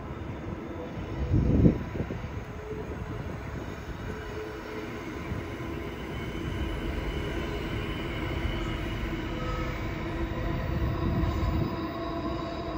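Diesel-hauled freight train passing, its locomotives and wagons rolling by with steady ringing tones over a continuous low rumble. There is a brief louder low thump about a second and a half in.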